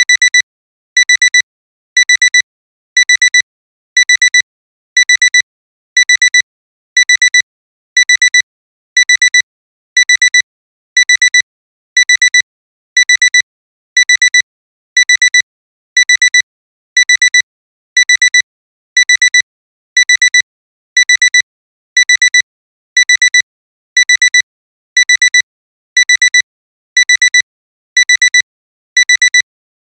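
Digital alarm clock beeping: a high-pitched electronic beep in quick clusters, repeating about once a second. It starts right at the beginning, signalling that the timer has run out.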